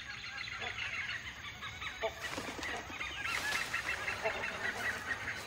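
Birds calling in a forest: a dense, steady chatter of short high chirps, with a few short honking calls about two seconds in and again near the end.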